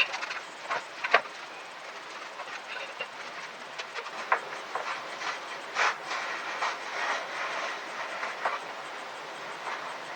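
Irregular clicks, knocks and scraping from panels being handled and worked during a soundproof-box build, over a steady hiss.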